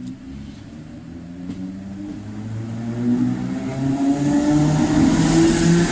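8100 Class DART electric multiple unit pulling away from the station, its traction motors whining with a pitch that rises as it gathers speed. It grows steadily louder as it comes up to the level crossing.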